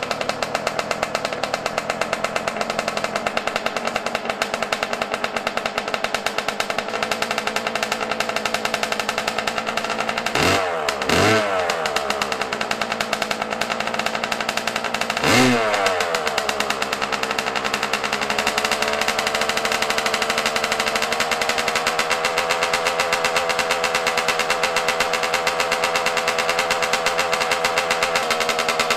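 Yamaha YZ125 single-cylinder two-stroke engine idling cold and running rich while the carburetor's air screw is adjusted. The throttle is blipped twice in quick succession about ten seconds in and once more about fifteen seconds in, each rev rising and falling back. After the last blip the idle speed rises a little.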